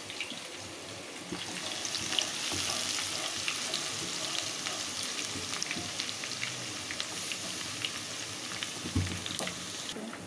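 Sliced onion frying in hot oil in a pan: a steady sizzle with scattered crackles, growing a little louder about a second and a half in, as a spatula stirs it. A dull thump near the end.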